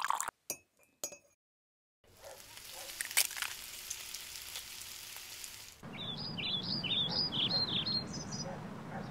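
A pour cuts off at the start, followed by a few light clinks. Then eggs sizzle in a frying pan with one sharp clink. From about six seconds in, small birds chirp in a quick run over a low background rumble.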